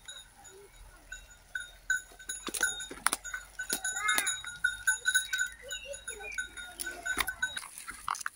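Bells on grazing livestock ringing irregularly, a repeated tinkling that gets busier from about two seconds in.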